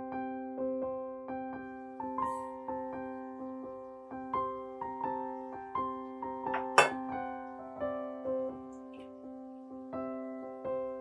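Soft background piano music, single notes struck at an even pace. There is one sharp click about seven seconds in.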